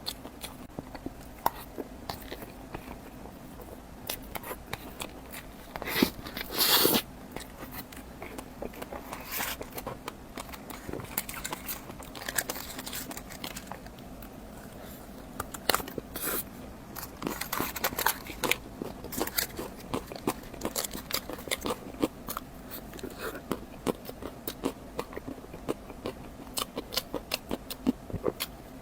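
Close-miked eating sounds: irregular bites, chewing and wet mouth clicks, with a louder noisy burst about a second long some six seconds in.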